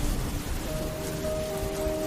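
Steady rain, heard as an even hiss, with soft background music of long held notes laid over it.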